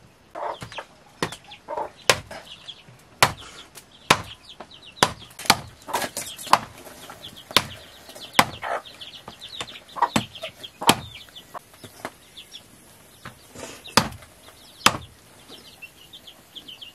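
A blade chopping raw chicken on a wooden chopping block: sharp, irregular chops about once a second. Between the chops, chickens chirp and cluck in the background.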